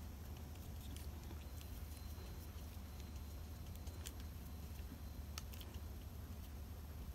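Faint sounds of a flat brush spreading thin starch glue over stamped tissue paper, with a few small clicks, over a steady low hum.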